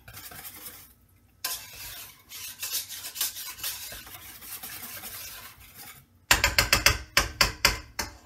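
Hand whisk stirring thickening cold process soap batter in a stainless steel pot, a steady scratchy scraping against the pot. About six seconds in come loud quick knocks, about four a second, for two seconds.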